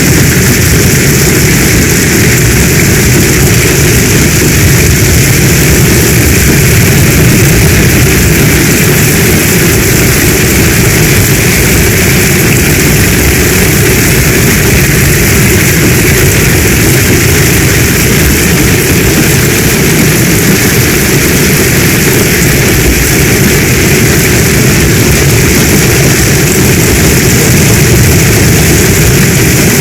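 Heavy storm rain falling steadily: a loud, even, unbroken rush with a strong low rumble beneath it.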